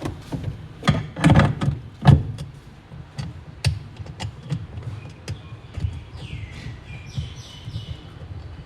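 Irregular metal clicks and knocks of a wrench and socket on the washing machine gearbox bolts as they are tightened, heaviest in a cluster about one to two seconds in, over a low hum.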